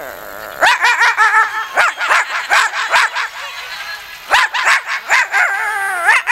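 A boy imitating a dog into a microphone: quick runs of high yelps and barks, a short lull about three and a half seconds in, then more yelps ending in a longer wavering whine.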